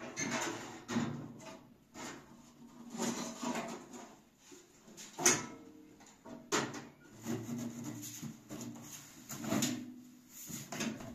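Sheet-metal stovepipe sections being twisted and pulled apart from a heater stove: repeated scraping and rattling of metal against metal, with a sharp clank about five seconds in and another a second later.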